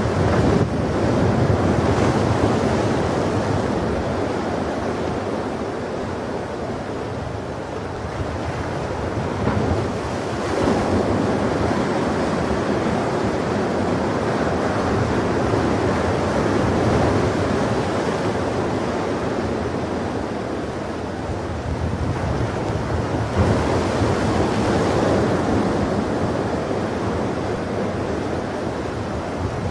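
Ocean surf: a continuous rush of waves washing onto a beach. The swell rises and falls, with a wave breaking louder about ten seconds in and again about two-thirds of the way through.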